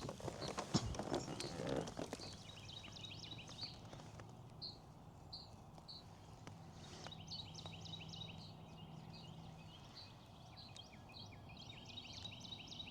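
Birds chirping and singing, many short repeated chirps, with a few knocks and some clatter in the first two seconds.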